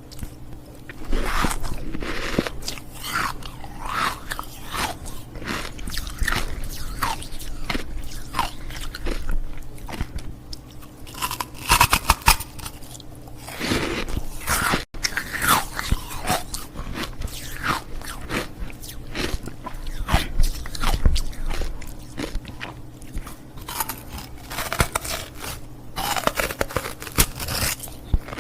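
Ice cubes being bitten and chewed close to the microphone: repeated sharp crunches and cracking of ice between the teeth, in irregular clusters throughout.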